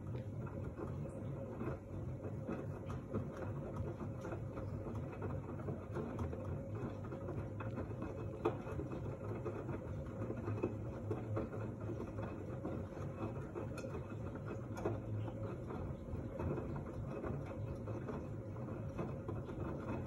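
LG F1289TD direct-drive front-loading washing machine running, its drum turning a load of wet laundry in sudsy water. A steady low hum with one constant pitched note sits under light churning and small clicks.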